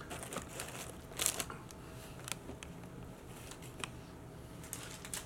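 Paper wrappers and the paper-lined takeout tray rustling and crinkling as hands handle a cheeseburger and onion rings. The sound comes as scattered light clicks and crinkles, with the loudest crinkle about a second in.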